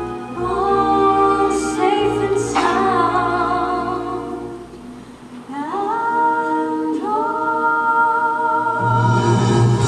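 A woman and a girl singing a musical-theatre ballad, long held notes with vibrato, over soft orchestral accompaniment. The singing dips quietly about halfway through, then two new phrases slide up into sustained notes.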